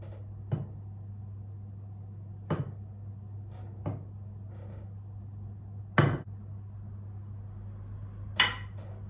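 Kitchen utensils knocking and clinking against a dish five times, sharpest near the middle and near the end, over a steady low hum.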